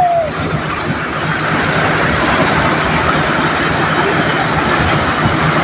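Floodwater rushing past in a loud, steady, even rush of noise.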